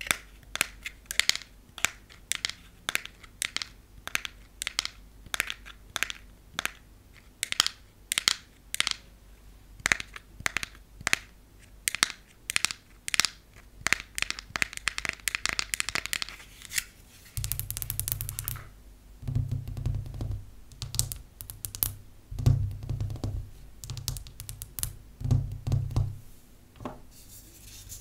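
Long fake nails and natural fingernails tapping on a frosted plastic nail-file case: quick, irregular clicky taps, several a second. About two-thirds of the way in the taps turn into lower, duller knocks mixed with lighter clicks.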